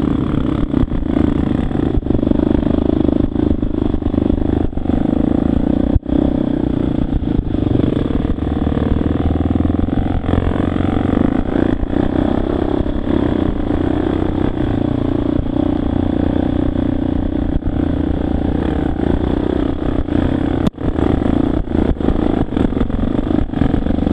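Dirt bike engine running continuously under varying throttle while riding a rough, rocky trail, heard close up from the bike itself. The sound dips briefly twice, about six seconds in and again near the end.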